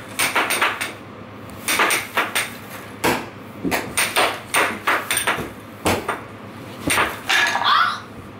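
Air hockey strikers hitting a red puck back and forth on a homemade wooden air hockey table, the puck clacking off the wooden rails: quick clusters of sharp clacks over a steady low hiss.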